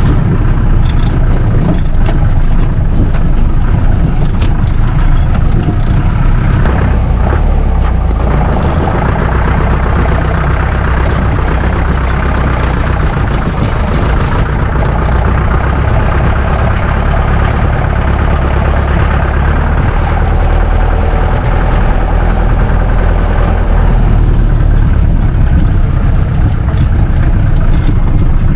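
Four-wheel-drive jeep engine running under load on a rough off-road track, heard from on board as a loud, steady low rumble that shifts in pitch now and then.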